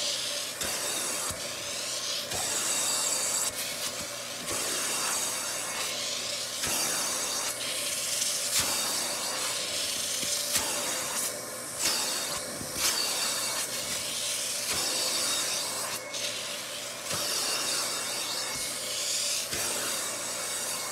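Upholstery cleaning machine's suction hose wand worked over a fabric sofa cushion: a steady motor tone under a hiss that swells and drops with each pass of the wand.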